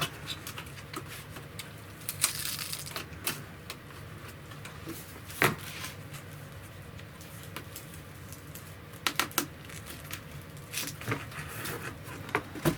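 Irregular sharp clicks and scrapes of the small retaining tabs on a car's rear side trim panel being pried and bent up by hand, with one louder snap about five and a half seconds in.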